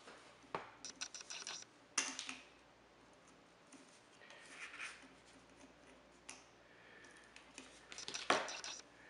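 Needle-nose pliers clicking and scraping against the metal frame of a Lionel #8E toy train motor as old wires are worked loose from its reversing unit. The clicks are scattered and sharp, with a cluster near the start, a single strong click about two seconds in, and another cluster near the end.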